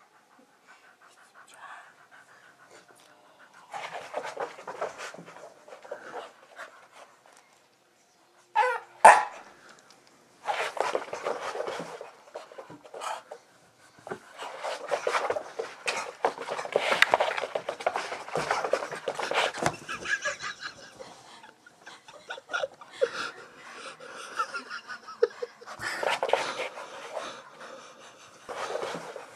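Staffordshire Bull Terrier panting hard, worked up, with bursts of noise from its movement. One short, loud cry about nine seconds in is the loudest moment.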